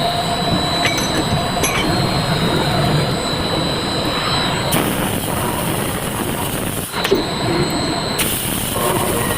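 Automatic circular saw machine running: steady mechanical noise with a thin high whine, the sound changing abruptly a few times.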